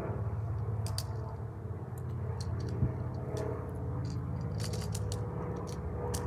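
Small, sharp, irregular clicks of plastic and metal as BBs are pressed one at a time into a Glock-style BB pistol magazine, its follower lever pushed down for each. A steady low motor hum runs underneath.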